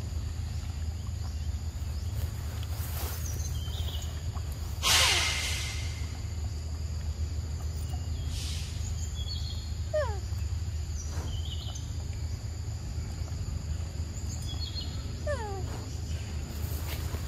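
Outdoor ambience with a steady low rumble and scattered short bird calls, among them a few quick falling notes. A short, loud hissing noise comes about five seconds in, with a fainter one a few seconds later.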